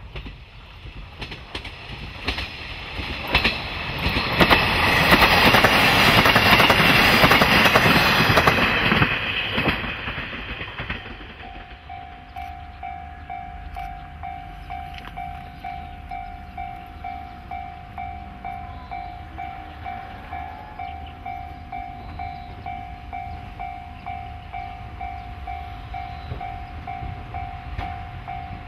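KiHa 40-series diesel railcar passing close by: engine and wheel noise swells, with wheels clicking over rail joints, and is loudest about five to nine seconds in before fading by about ten seconds. After that a level-crossing warning bell rings, one steady tone pulsing evenly, over a low rumble.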